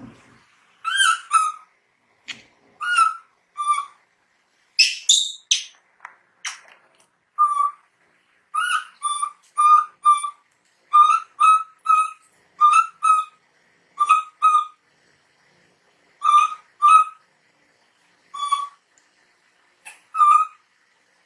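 A baby monkey calling: short, high-pitched, whistle-like cries repeated many times, often in quick pairs.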